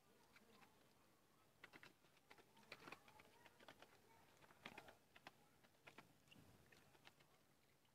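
Muscovy ducklings feeding from a plastic tub: faint, irregular clicking and tapping of their bills against the tub and the feed.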